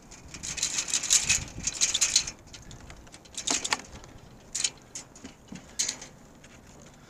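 Wire crab ring rattling and scraping on wooden pier planks as it is shaken and tipped to get a crab out, with a few separate sharp clacks near the end.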